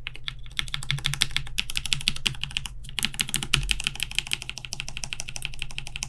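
Rapid keysmash typing on a stacked-acrylic Alice-layout mechanical keyboard with linear frankenswitches (Cherry Black housings with Kailh Pro Burgundy stems) and polycarbonate keycaps. It is a dense run of clacky keystrokes that breaks off briefly twice.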